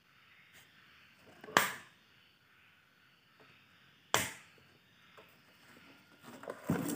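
Power rocker switch on an Izumi MO 120 inverter arc welder being flicked: two sharp clicks about two and a half seconds apart, then a few quicker knocks near the end.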